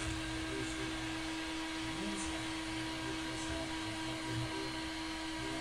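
Electric heat gun blowing steadily, an even rushing whir with a constant hum, as it heats freshly printed plastisol ink on a t-shirt to dry and cure it.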